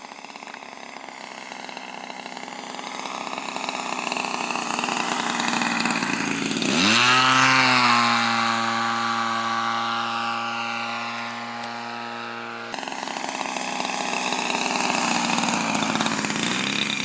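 Engine of a radio-controlled model biplane running as it flies low past. The sound grows louder over the first several seconds, its pitch bends and settles about seven seconds in, and it then runs steadily.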